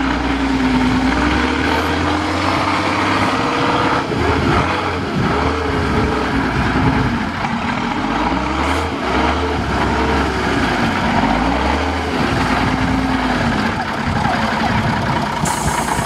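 Praga V3S EVO II trial truck's engine working under load in deep mud, revving up and falling back in a string of surges from about four to twelve seconds in. A short hiss near the end.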